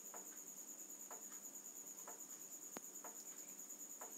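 A cricket trilling steadily in a high, unbroken note, faint. A soft knock repeats about once a second underneath, and there is one sharp click near the middle.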